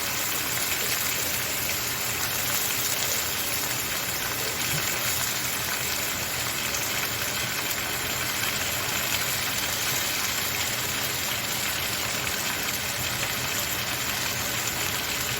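Chicken breasts, onion and bell pepper sizzling steadily in a frying pan as they sear.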